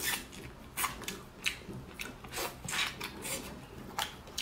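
Close-miked chewing and wet lip-smacks while eating lobster meat: a string of short, sharp, irregular clicks, about two a second.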